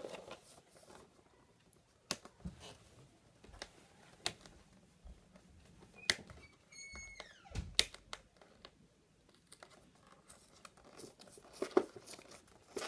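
Cardboard and plastic action-figure packaging being handled and torn open: faint scattered rustling, crinkling and clicks, with a brief high squeak a little past halfway.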